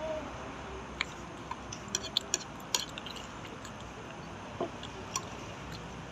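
Chopsticks clicking and tapping against a bowl and each other while noodles are eaten: a handful of light, sharp clicks, bunched together between one and three seconds in and a couple more later, over steady background noise.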